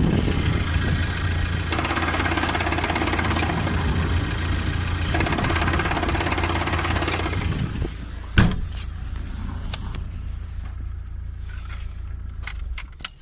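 VAZ-2107 engine running with a rattling, knocking noise from the gearbox, louder through the middle, then a single sharp knock and a quieter stretch. The owner says the knock from the gearbox disappears when the clutch is pressed.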